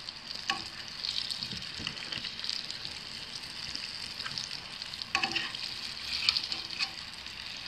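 Oliebollen, dough balls with apple pieces, deep-frying in hot oil in a steel pot: a steady sizzling crackle, with a few light clicks as the metal tongs touch the pot.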